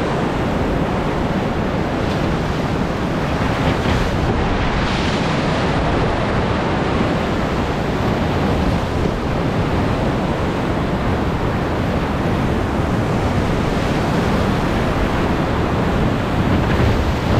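Whitewater of a big river rapid rushing loudly and steadily around a raft riding through its breaking waves.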